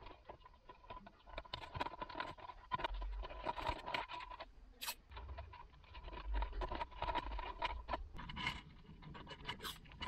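Light scratching and rustling of hands wrapping electrical tape around a wire, with many small scattered clicks and a faint steady tone underneath for much of the time.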